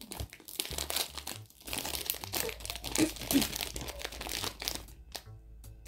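Crinkling and rustling of blind-box packaging being handled, in dense irregular crackles that die away shortly before the end.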